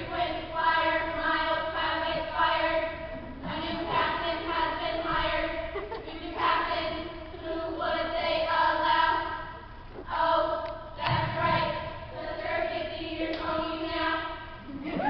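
A large group of students singing a cheer song together in unison, in held notes broken by short pauses every few seconds.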